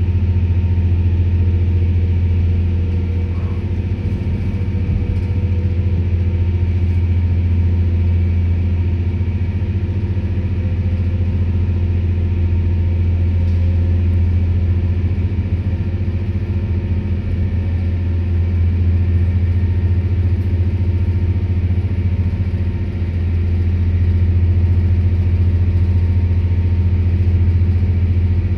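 Stadler GTW-D diesel-electric railcar's diesel engines running steadily under power, heard from a seat beside the engine compartment as a loud, even low hum with steady overtones.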